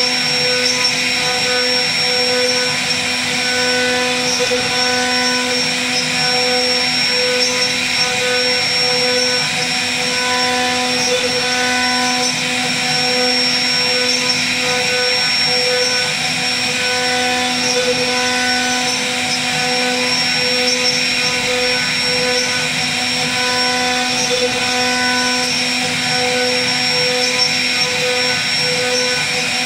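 CNC router spindle running at a steady whine as its bit routs wood, with a rushing cutting noise and a slight regular pulsing in the tone.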